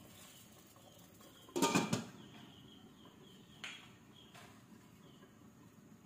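Glass pot lid clattering down onto a stainless steel cooking pot: a short cluster of clinks about a second and a half in, then two lighter clinks a couple of seconds later.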